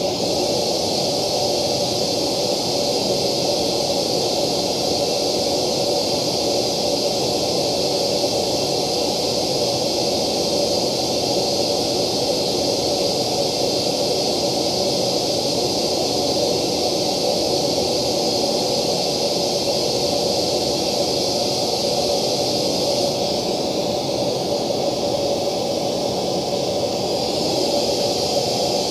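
Steady hiss-like test noise played through a JBL ring-radiator tweeter. The top treble shifts for a few seconds near the end as a clear acrylic acoustic lens is set back in front of the horn, changing how the highs reach the microphone.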